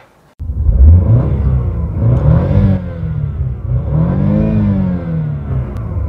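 BMW car engine revved twice while parked, its pitch climbing and dropping back each time, then running on at a steadier speed.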